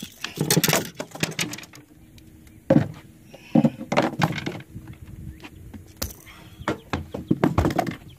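A red drum flopping and thumping against a boat deck while it is handled and laid out for measuring, giving a run of irregular knocks and clatters.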